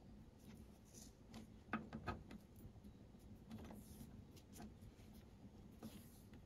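Faint rustling and light clicks of nylon paracord being handled while a yarn needle is worked through the cords of a macramé collar, with two slightly louder clicks about two seconds in.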